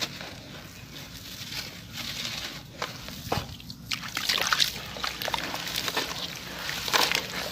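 Crunchy sand-cement chunks being crushed, a gritty crackling full of small snaps that grows denser and louder about four seconds in.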